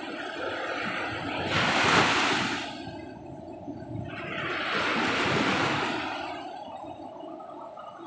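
Sea surf breaking and washing up a sandy beach, coming in two surges: one about a second and a half in, the loudest, and another about five seconds in, with quieter wash between.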